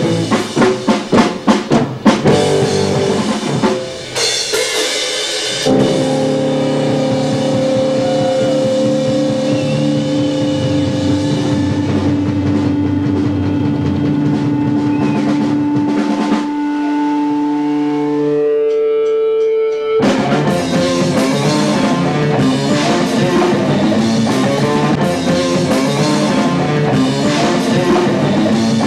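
Rock band playing live: a run of drum hits, then guitar and bass hold long ringing notes for over ten seconds, and about twenty seconds in the whole band comes back in together with drums, bass and guitar.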